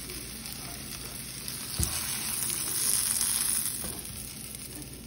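Steady sizzling of food frying in a pan on the stovetop, with one knock a little before two seconds in and the sizzle swelling about three seconds in before easing off.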